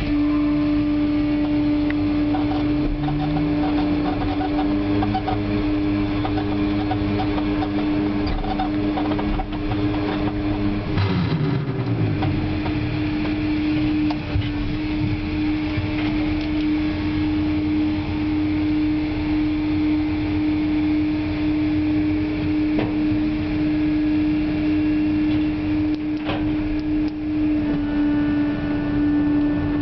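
Log-deck machinery heard from the operator's cab: a steady mechanical hum throughout, with a drive motor winding up about three seconds in, running steadily, winding down around eleven seconds, and winding up again near the end.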